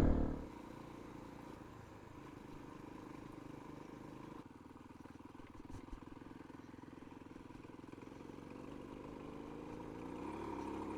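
Motorcycle engines: a bike going by close fades away within the first half second, leaving a faint, steady hum of motorcycles running in the distance that grows a little louder near the end.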